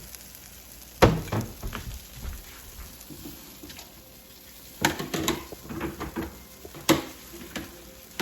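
Kitchen clatter of a plate, pan and utensils: a sharp knock about a second in, and more knocks and clinks near five and seven seconds, over the faint sizzle of an omelet frying in the pan.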